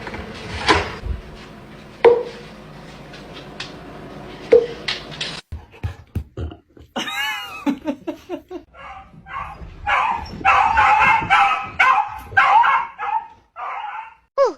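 A dog vocalizing: a wavering, howl-like call, then a quick run of barks. A few sharp knocks come before it.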